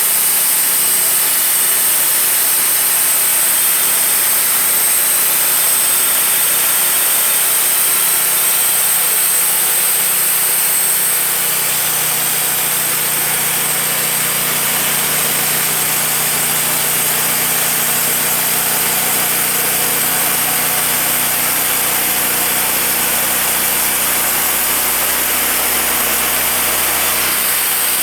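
Wood-Mizer portable bandsaw mill running steadily under engine power. About eleven seconds in, the running note changes as a lower hum comes in, and it changes back near the end.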